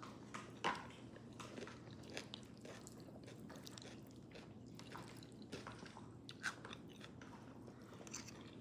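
A person chewing food close to the microphone: faint, scattered mouth clicks and smacks, the sharpest about a second in and again near the end.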